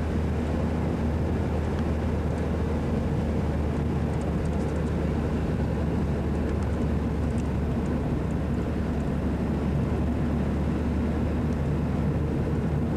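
Car engine and road noise heard from inside the cabin: a steady low drone that holds level throughout.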